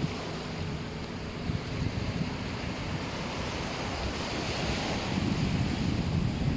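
Sea waves washing onto the beach, swelling about four seconds in, with gusty wind rumbling on the microphone.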